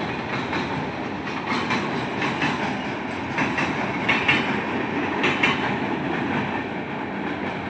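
Rajdhani Express LHB coaches rolling past at speed: a steady rumble of wheels on rail, with paired clicks roughly every second as the wheelsets cross rail joints.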